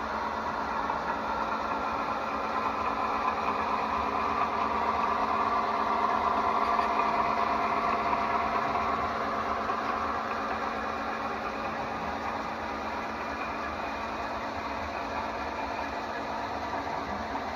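Model train running steadily on the layout: an F7 A-B diesel locomotive pair pulling passenger coaches, with a continuous engine-like hum and rattle that grows louder in the middle and then eases off.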